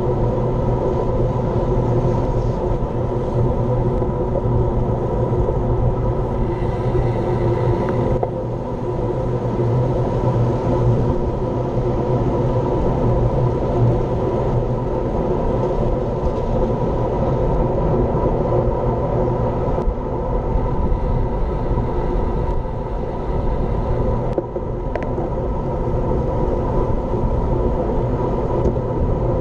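Steady wind rush on the microphone and road rumble from a road bike riding at speed.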